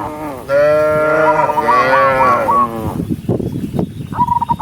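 Cow mooing: one long, loud moo lasting over two seconds. Short high notes repeat about four times a second over part of the moo and again near the end, and a spell of irregular knocks comes between them.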